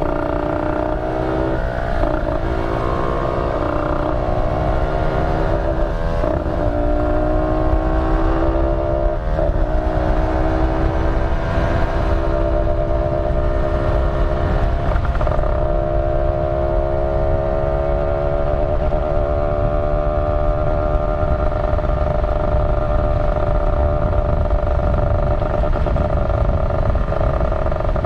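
Kawasaki Ninja 150RR's two-stroke single-cylinder engine pulling through the gears while riding. Its note climbs and drops back at each shift, several times in the first fifteen seconds, then holds a steady cruising pitch.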